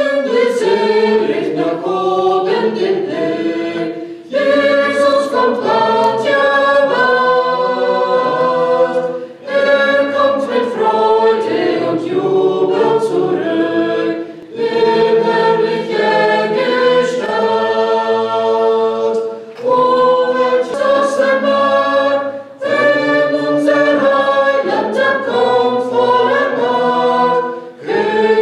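Small mixed group of five singers, two women and three men, singing a hymn unaccompanied in parts. The singing comes in phrases of about five seconds, with a short break for breath between each.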